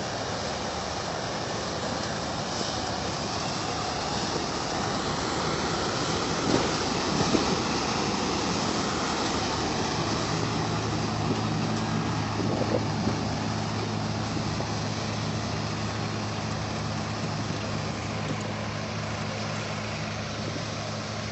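Sant 5700 combine harvester running: a steady din of engine and machinery, with a steady low engine hum coming up about halfway through and a few light knocks.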